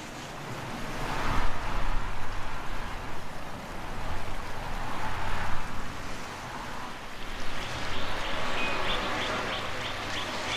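Wind gusting in swells over a low steady rumble, with a rapid run of short high bird calls near the end.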